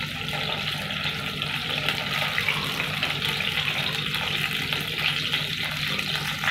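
Freshly added sliced onions sizzling in hot mustard oil in a kadai, a steady frying hiss.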